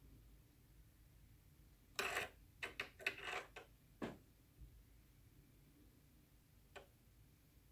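A metal ballpoint pen tapping and rattling on a wooden desktop as a cat bats it with its paw: a quick cluster of clicks about two seconds in, one more a second later, and a single light tap near the end.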